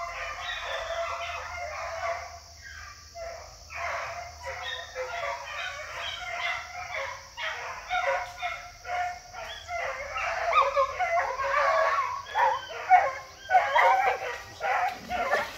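Hunting dogs baying and barking over and over as they follow a paca's scent trail. The calls grow louder in the second half.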